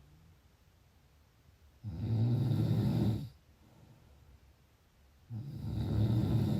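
A person snoring in sleep: two low-pitched snores about three and a half seconds apart, each lasting about a second and a half.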